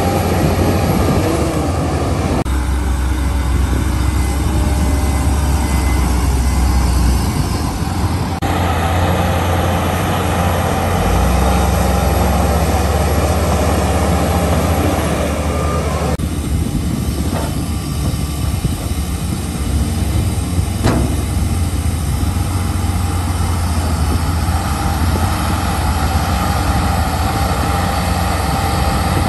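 Shantui crawler bulldozer's diesel engine running steadily under load as it pushes soil. The sound shifts abruptly a few times, and there is one sharp knock about two-thirds of the way through.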